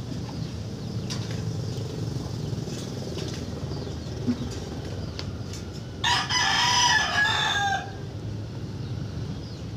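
A rooster crowing once, about six seconds in, a loud call of nearly two seconds that drops in pitch at the end, over a steady low rumble of traffic.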